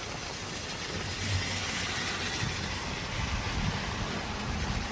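Steady hiss of heavy rain and floodwater, with a low rumble underneath that swells now and then.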